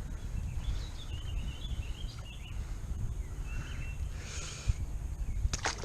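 Birds chirping faintly over a steady low outdoor rumble, with a brief hiss about four and a half seconds in and a couple of sharp clicks near the end.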